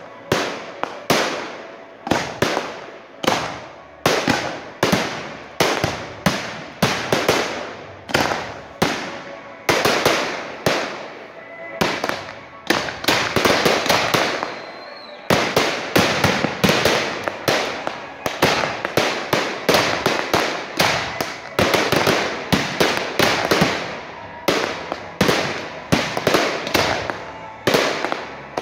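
Aerial firework shells bursting in quick succession, sharp bangs about one to two a second, each dying away. The bursts crowd together about ten to fifteen seconds in.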